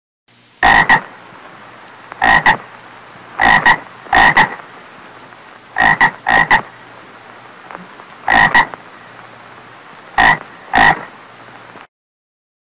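A frog croaking: short croaks, often in quick pairs, repeating every one to two seconds over a steady low background hiss.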